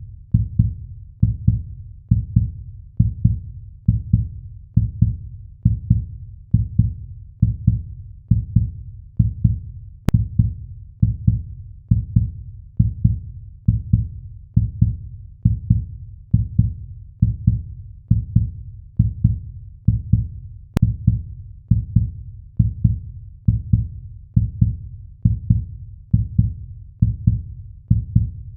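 Heartbeat sound effect: a steady lub-dub pulse of low double thumps, a little faster than one beat a second.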